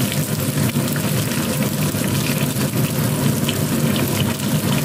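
Cornstarch-coated chicken pieces deep-frying in hot oil in a pan, a steady sizzle full of small crackles and pops; the chicken is cooked through.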